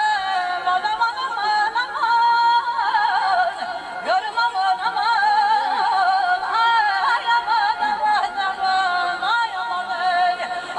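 A woman sings in Azerbaijani ashiq style with an accompanying saz. Her high melodic line is held almost without a break and bends through quick ornamental turns in pitch.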